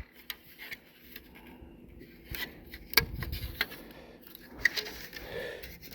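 Cover of a Connectrac floor raceway being set onto the track by hand: scattered light clicks and knocks with some scraping as it is fitted.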